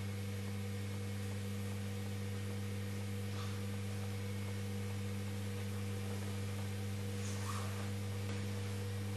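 Electric potter's wheel motor humming steadily at a low pitch while a tall clay bottle is thrown. Two faint, brief sounds come about a third of the way and three-quarters of the way through.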